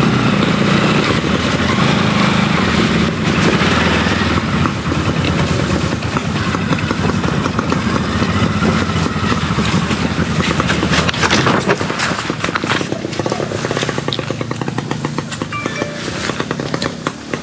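Motorcycle engine running at low speed as the bike rides along a muddy, rutted dirt trail, with a steady low hum and a rough noise of wind and tyres over it. About two-thirds of the way through, a dense run of clicks and knocks comes in as the bike goes over rough ground.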